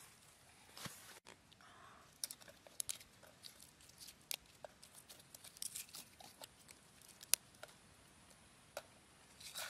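Red chillies and garlic cloves dropped by hand into a wooden mortar: scattered faint light taps and clicks.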